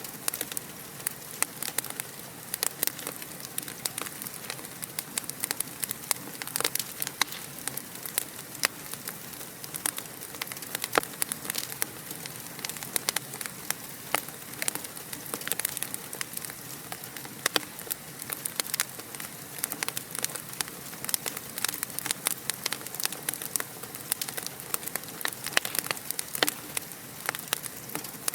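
Fireplace fire crackling: a steady soft hiss with frequent sharp pops and snaps at irregular intervals.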